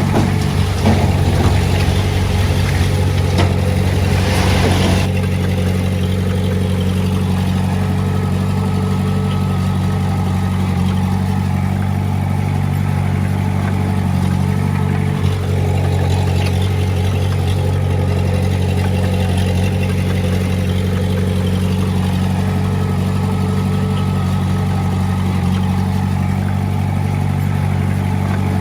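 Heavy-equipment diesel engine running steadily. Extra clattering noise over the engine for the first five seconds or so.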